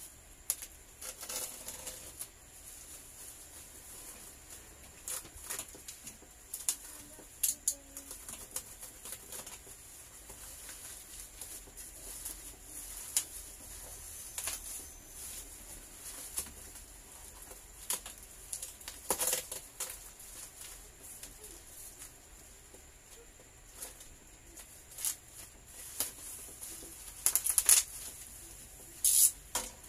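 Plastic parcel wrapping and bubble wrap being slit with a utility knife and pulled apart: irregular rustling and crinkling with scattered sharp crackles, loudest near the end.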